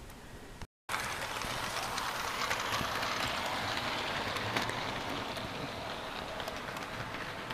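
HO-scale model train running along the track: a steady whirr of its motor and wheels on the rails. A short cut-out to silence comes just under a second in.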